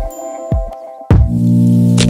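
Electronic background music with a kick-drum beat; a fuller, louder held chord comes in about a second in.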